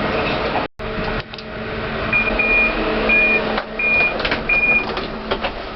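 Heathrow Pod driverless pod car's electronic beeps: four short high beeps, evenly spaced under a second apart, over a low steady hum, with a few clicks.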